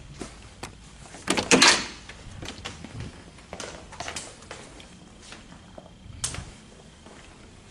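A door shutting with a clack about a second and a half in, amid scattered footsteps and small knocks.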